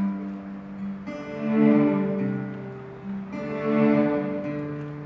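Instrumental opening of a slow gospel ballad: sustained string-like chords that swell and change every second or two.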